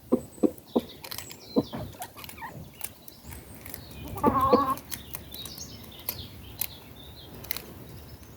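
Chickens clucking while pecking at bread, with short sharp taps of their beaks. One louder, drawn-out cluck comes about four seconds in.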